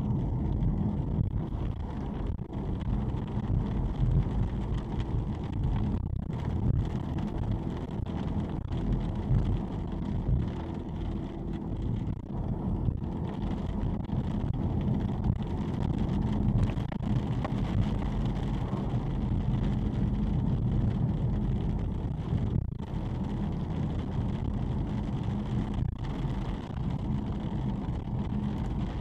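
Steady road noise inside a moving car: engine and tyres running on wet asphalt, with a low, even rumble.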